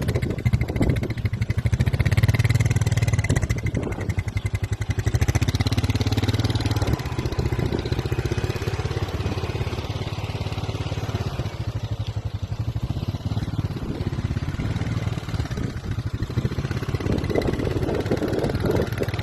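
An engine running steadily, with a fast, even pulsing and some rises in level near the start and near the end.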